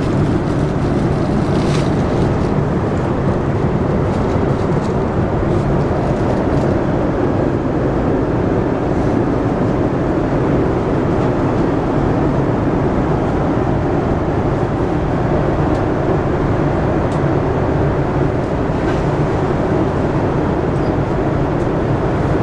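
Steady loud roar of a Boeing 747-400's Rolls-Royce RB211 engines and rushing air, heard inside the passenger cabin, with a few faint rattles.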